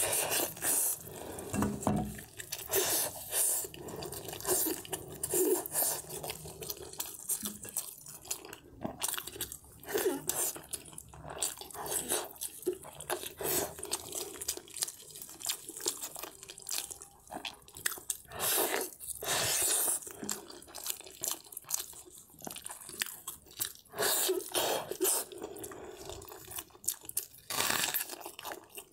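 Close-miked wet chewing, biting and lip-smacking of braised meat torn off the bone by hand, with a crunchy bite into a raw red onion near the end.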